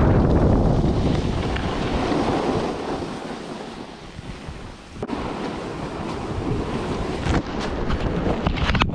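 Wind rushing over the microphone during a snowboard run: a loud, steady rush that eases off around four to five seconds in and then builds again, with a brief dropout about five seconds in.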